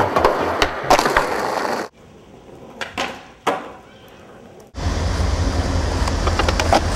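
Skateboard wheels rolling over concrete, with sharp clacks of the board popping and landing. The sound cuts off abruptly about two seconds in to a quieter stretch with a few sharp clacks, then loud rolling rumble returns shortly before five seconds.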